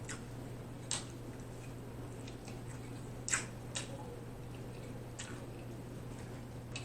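Close-miked eating: about half a dozen short, wet mouth clicks and smacks from chewing at irregular intervals, the loudest just past the middle, over a steady low hum.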